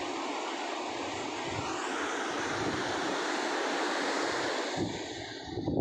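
Steady rush of sea waves with wind buffeting the microphone; the rush eases near the end.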